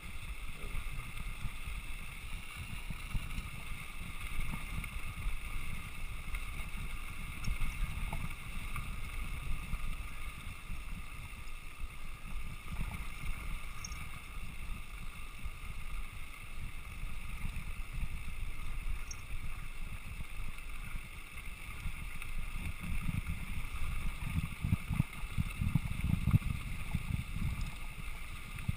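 Wind rumbling on the microphone and mountain-bike tyres rolling over a rocky dirt road, with the crackle of gravel under the wheels. The rumble grows heavier near the end as the ride speeds up or gets rougher.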